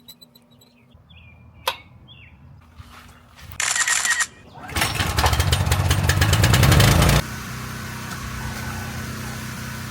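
Pressure washer running: a small engine and the spray, with a short loud burst about three and a half seconds in, a loud rapidly pulsing stretch from about five to seven seconds, then a steadier, quieter run.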